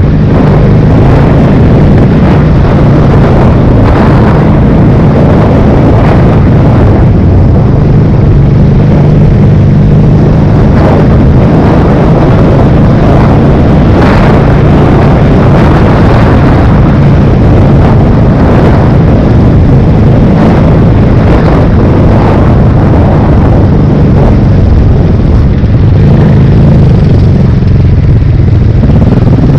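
Large single-cylinder four-stroke enduro motorcycle engine running at a steady riding pace on a dirt track, heard loud from on the bike, with a constant rush of riding noise and short surges in throttle.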